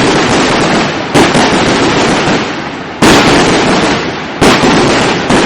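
Aerial fireworks shells bursting overhead: four loud bangs about a second and a half apart, over continuous crackling from the falling stars.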